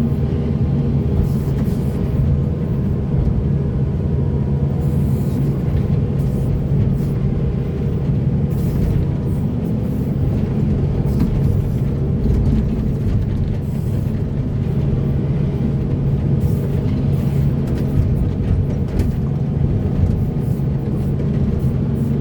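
Heavy diesel engine of earthmoving machinery running steadily under load, with faint clanks scattered throughout.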